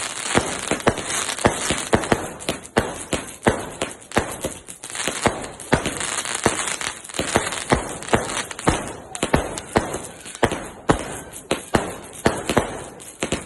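Fireworks and firecrackers going off, a dense run of sharp bangs and cracks, several a second at irregular intervals.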